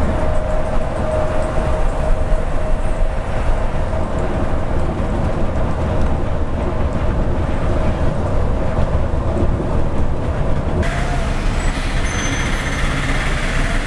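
Steady in-cabin running noise of a Volvo 9600 multi-axle sleeper coach on the Volvo B11R chassis at highway speed: engine drone with road and wind noise and a steady whine. About eleven seconds in, the sound changes abruptly to the bus moving slowly, with more hiss.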